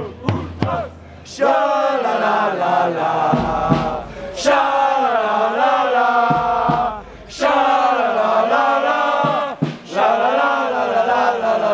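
Football supporters in the stand chanting in unison, a sung phrase repeated about every three seconds by many voices, with a few sharp beats near the end.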